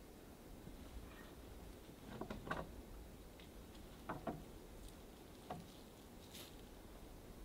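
Faint scattered knocks and taps from work on a wooden platform frame, coming in a few short clusters of two or three.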